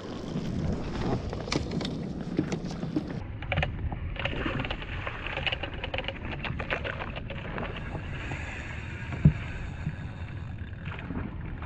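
Kayak paddling on open sea: paddle splashes and water washing against the hull, with one sharp knock about nine seconds in.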